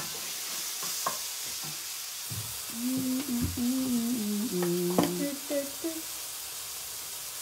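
A woman humming a short tune in steady stepped notes for about three seconds, from just under halfway in, over a steady high hiss, with a few light clicks.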